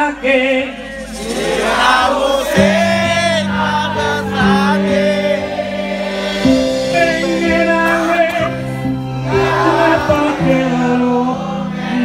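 Live music through PA speakers: sustained low chords come in about two and a half seconds in, with singing voices over them, like a crowd singing along with a male singer.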